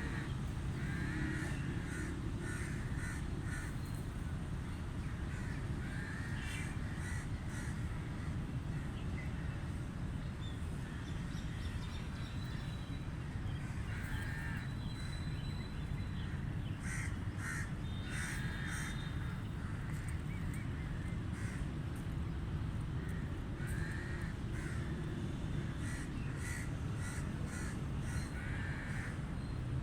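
Crows cawing in clusters of several harsh caws every few seconds, over a steady low rumble.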